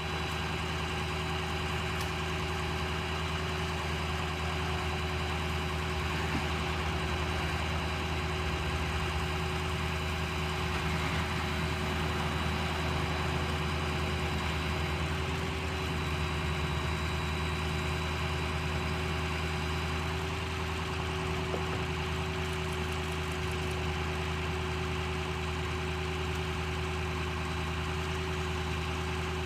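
A large engine idling at a steady, unchanging speed: a deep, even hum with a steady tone above it.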